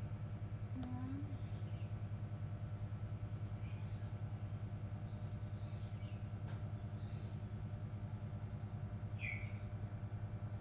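Long-haired domestic cat purring close up: a steady, low, rapidly pulsing purr with no break.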